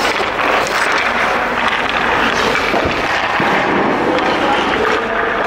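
Ice rink ambience: a steady, echoing wash of skates scraping the ice and voices in the hall, with a faint knock or two from hockey sticks and puck.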